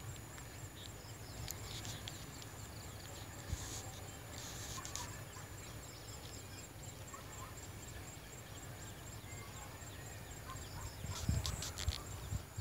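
Faint, steady low rumble of a distant diesel locomotive creeping slowly closer, under outdoor background noise. A few soft thumps and clicks come near the end.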